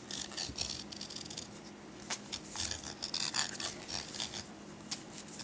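Tubing cutter being turned around a masking-tape-covered aluminium Maglite body tube, its cutting wheel scoring a ring: quiet, irregular scraping and clicking strokes.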